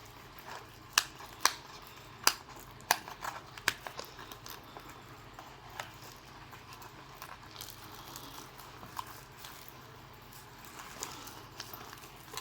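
Hair-cutting tools and packaging being handled: about six sharp clicks of metal and plastic in the first four seconds, then soft rustling and light ticks.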